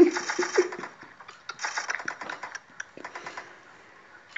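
Domestic cat chattering at a window: fast runs of clicking, with a few short bleating tones in the first second. A second run of clicks follows after a brief pause and fades out near the end.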